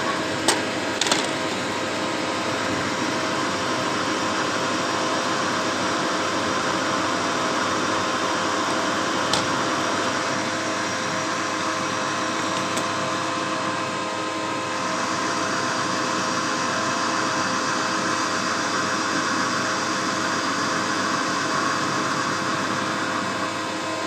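CNC machine running steadily: a continuous machining hum with several steady tones, broken by a few sharp clicks, two of them near the start.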